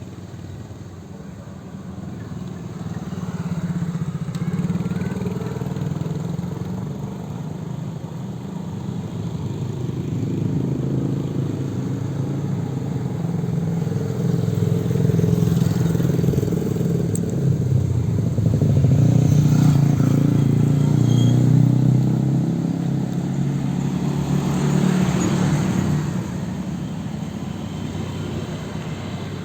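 Motorcycle engine running, its sound swelling and easing several times, loudest in the second half.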